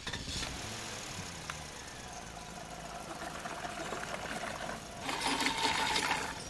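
Small electric motor of a homemade model tractor whirring steadily as it drives, with a louder, rougher stretch about five seconds in.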